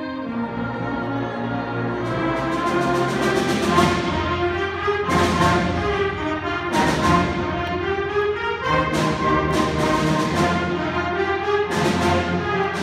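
Student concert band playing: brass and woodwinds hold full chords, with saxophones, trumpets, trombones and tubas. From about two seconds in, a quick run of percussion strokes is followed by sharp percussion hits every second or two.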